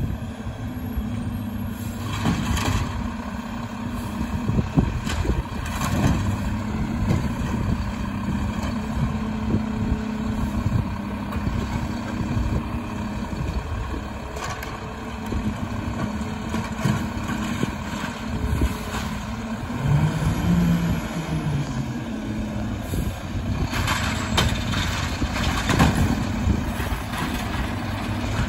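Mack side-loader recycling truck's diesel engine running with a steady hydraulic hum as the automated arm grabs, lifts and tips recycling carts, with sharp clunks and bangs of the carts and arm against the hopper, bunched a few seconds in and again near the end.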